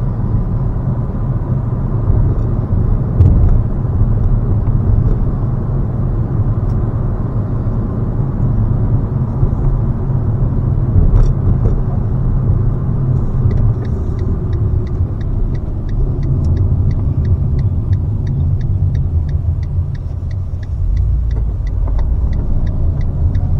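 In-cabin sound of a Fiat Panda 4x4 being driven: its two-cylinder TwinAir turbo petrol engine and the road noise make a steady low rumble, which dips briefly a little past two-thirds of the way through and then picks up again. About halfway through, a regular ticking of about three a second sets in and carries on, typical of the turn-signal indicator as the car turns.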